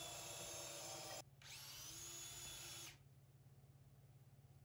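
Near silence: faint room tone with a faint steady whine that drops away about three seconds in.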